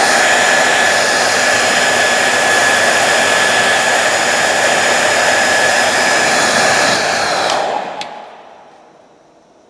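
Handheld hair dryer blowing steadily, a rush of air with a steady whine over it. About eight seconds in it is switched off and its fan winds down.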